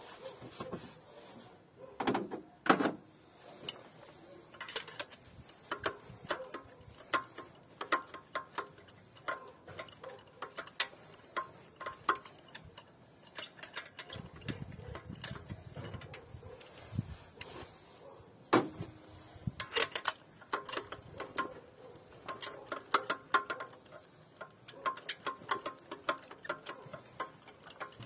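Socket ratchet clicking in quick runs as spark plugs are unscrewed from the engine's plug wells, with the odd louder knock of the tool against the metal.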